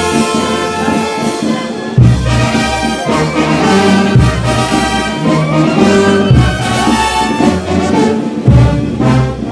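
Brass band playing carnival music live and loud, trumpets and trombones in full ensemble over a low bass line.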